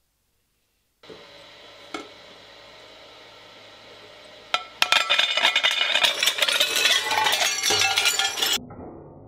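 Shredder running with a steady hum, then a ceramic plate cracking and breaking between its cutter discs in loud clinking crunches for about four seconds, cutting off abruptly near the end.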